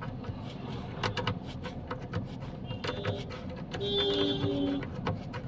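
Irregular metal clicks of a 10 mm wrench turning the handbrake cable adjuster nut, tightening a slack parking-brake cable that had been rattling. A brief steady tone sounds about four seconds in.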